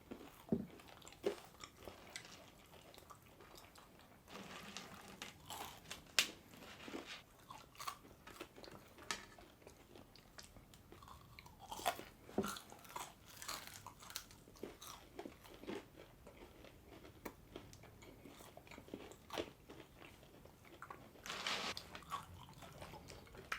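People chewing and biting into crispy fries and pulled pork sandwiches: irregular crunches and wet mouth clicks, with a couple of longer crunching spells.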